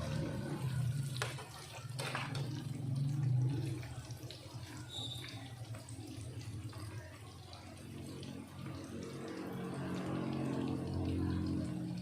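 Tofu and tempeh frying in hot oil, sizzling steadily over a low hum, with a couple of sharp clicks in the first two seconds.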